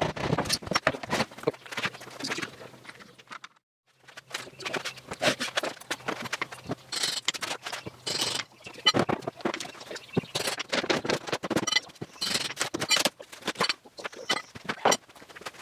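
Irregular knocking and clattering of workbench parts being handled and fitted by hand, with a brief break about three and a half seconds in.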